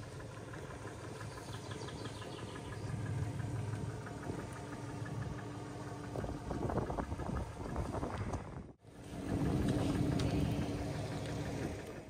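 Vehicle engines idling steadily, a low hum with a few held tones. The sound cuts out for a moment about nine seconds in, then the hum resumes.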